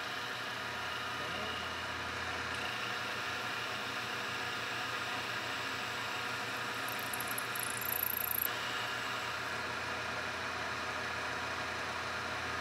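Vertical milling machine running, its end mill cutting a metal workpiece with a steady whir. The cut turns briefly louder and higher-pitched about eight seconds in.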